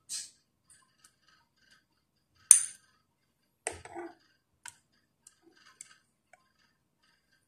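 Tableware clinking: a metal spoon and chopsticks knocking against a small glass bowl and a noodle bowl. Light scattered clicks, with one sharp clink about two and a half seconds in and a short cluster of knocks just after.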